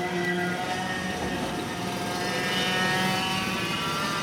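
Small engine running, with a steady hum and an upper tone that rises in pitch near the middle.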